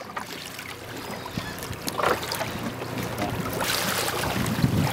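A hooked small shark splashing and thrashing at the surface against a boat's hull as it is grabbed by hand, the splashing growing louder near the end. Under it runs the steady low hum of the boat's idling engine.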